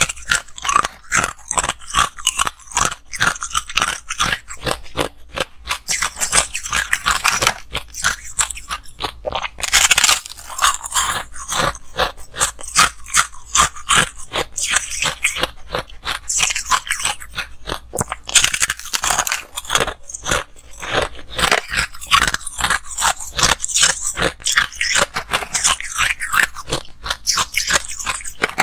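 Close-up crunching and chewing of chunks of freezer frost, bitten off and crushed between the teeth in quick, irregular crunches. The crunching comes densest about ten seconds in and again near twenty seconds.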